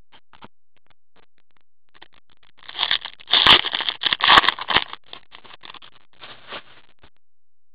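Foil trading-card pack wrapper crinkling and tearing as it is ripped open: a dense burst of crackling starts near the middle and lasts about two seconds, followed by lighter crinkles.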